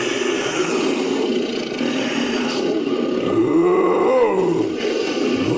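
Designed creature roar made by layering animal roars and a human voice: one long, rough, growling roar whose pitch rises and falls back about three and a half seconds in.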